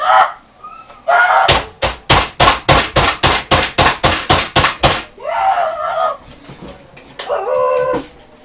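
A boy yelling, then a rapid run of about a dozen hard bangs, roughly four a second, as he pounds on the computer desk, followed by more yelling.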